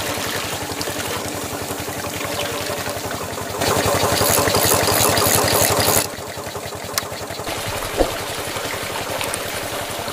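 Water pouring into a small cement tank over the steady hum of a small electric motor. The sound gets louder for a couple of seconds and then drops off suddenly, and two sharp clicks follow from the switches on a small hand-made control panel.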